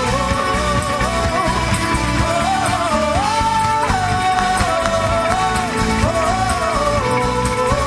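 Live pop-rock gospel band playing, with a lead melody of held, sliding notes over drums and bass.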